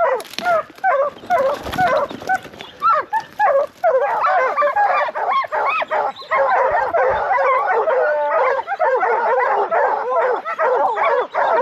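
A pack of hunting hounds baying together, many short overlapping calls that thicken into a steady din about four seconds in: the dogs have a bobcat treed.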